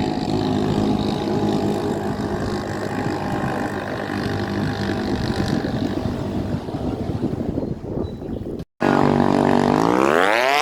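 Radio-controlled racing boat engine running steadily. After a short break near the end, an engine revs up, its pitch climbing.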